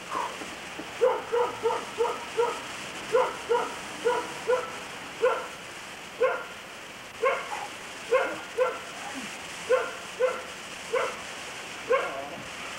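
A mutt barking over and over: short barks, some in quick runs of two or three and some alone, with brief pauses between.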